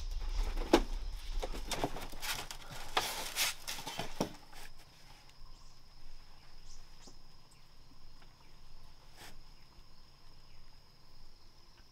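Insects trilling as one steady high tone. Over the first four seconds or so comes a run of knocks, clatter and rustling from handling, then it goes quieter, with a few scattered clicks.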